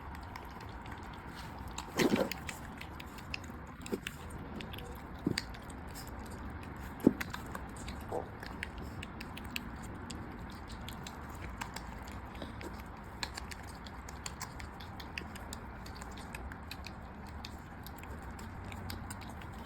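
A pig and a puppy eating: steady chewing and mouthing at their food, with many small scattered clicks and a few louder knocks about 2, 5 and 7 seconds in.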